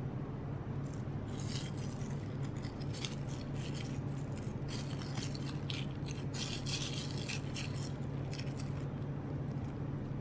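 Plastic film crinkling and rustling in short, scratchy, irregular spells as fingers press soft butter down into a film-lined box, over a steady low hum. The crackles thin out near the end.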